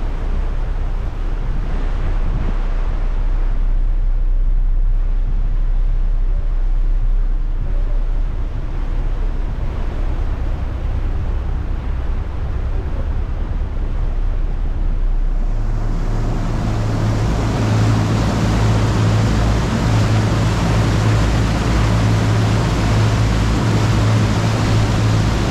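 Fishing boat's engine droning under a rushing hiss of wind and water. About two-thirds of the way in, the sound changes abruptly to a louder, steady engine hum with more hiss.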